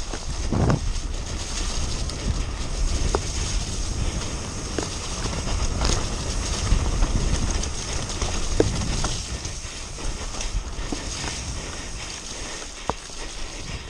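Mountain bike descending a muddy singletrack at race speed: tyres rumbling over the dirt and the bike rattling, with a few sharp clicks and knocks from the drivetrain and frame over the bumps.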